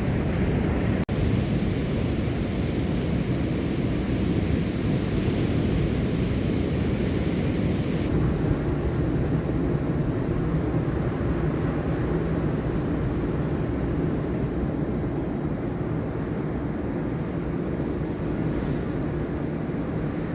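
Steady low rumbling noise, with a brief cut about a second in.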